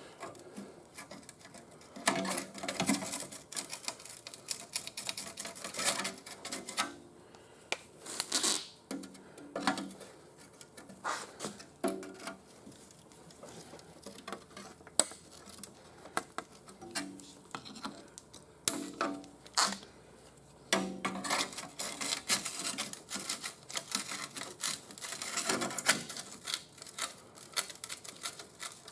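Irregular bursts of rapid clicking, tapping and scraping on rusted sheet metal as two rusted inner fender panels are worked apart.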